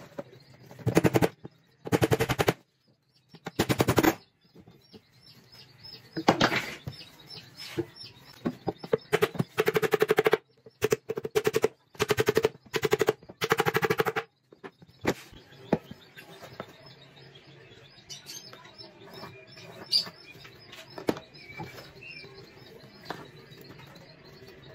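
Hammer driving nails into plywood: loud clusters of rapid blows through the first half, then only light taps and clicks of wood and tools being handled.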